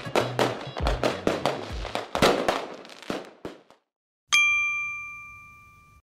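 Drum-backed music with a bass line fading out over the first three and a half seconds, then a single bright chime struck about four seconds in, ringing and dying away slowly, as a logo sting.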